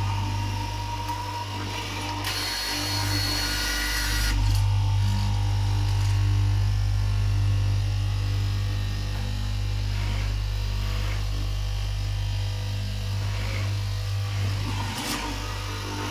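Electric straight knife cloth-cutting machine running with a steady hum, its upright reciprocating blade cutting through a thick stack of fabric layers. About two seconds in there is a louder, hissier stretch that lasts about two seconds.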